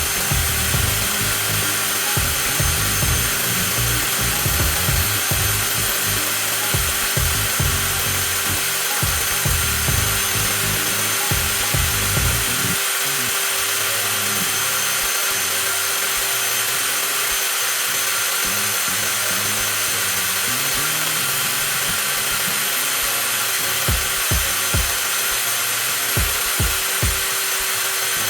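Cordless brushless angle grinders running continuously at steady speed, a high-pitched whine with a steady hum under it. This is a battery-endurance run about half an hour in, with the motors not yet heating up. Irregular low knocks come and go, dying down about 12 seconds in and returning near the end.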